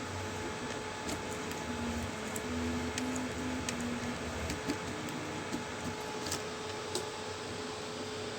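DIY ESP32-controlled CoreXY 3D printer printing. Its stepper motors whine in short tones that jump in pitch from move to move, over a steady fan hiss and hum, with scattered light ticks.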